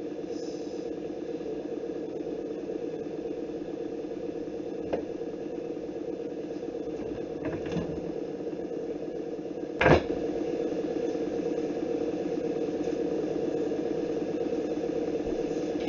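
A steady mechanical hum with a couple of faint clicks and one sharper knock about ten seconds in, after which the hum is a little louder.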